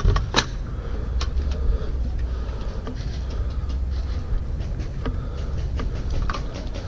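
Steady low rumble of wind or movement on a body-worn camera's microphone, with a sharp click about half a second in and a few fainter clicks scattered through.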